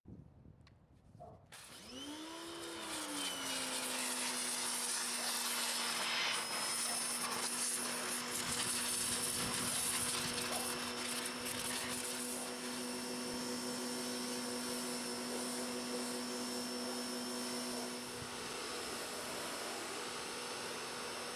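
Portland electric pressure washer's motor and pump starting up about two seconds in, the pitch sweeping up and settling into a steady hum over a loud hiss. Near the end the hum drops out while the hiss goes on.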